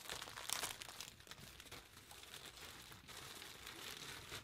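Clear plastic bag crinkling as a folded T-shirt inside it is handled, an irregular rustle with a louder crackle about half a second in.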